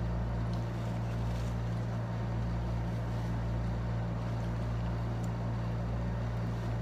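Window air conditioner running with a steady low hum, with a few faint clicks over it.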